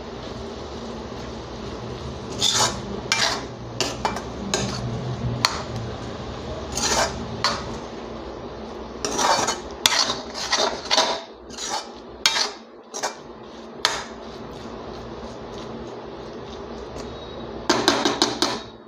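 Metal spatula scraping and clinking against a metal kadai while egg and amaranth-leaf scramble is stirred, mixing in the chilli powder, salt and coriander powder just added. Irregular strokes, with a quick flurry of scrapes near the end.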